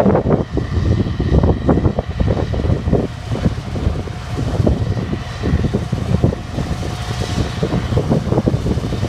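Combine harvester running through a soybean field: a steady low machine drone with uneven surges and a faint whine above it.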